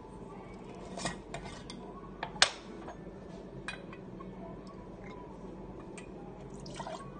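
A glass jar with a metal screw lid being handled on a bar counter: the lid is twisted off and set down, giving a series of sharp clinks and knocks, the loudest about two and a half seconds in, over a steady low background hum.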